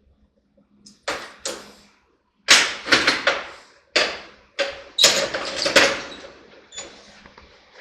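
Roughly ten sharp hammer blows on a steel driveshaft yoke, ringing metallically, struck in small groups. They are struck to seat the U-joint and free it of bind.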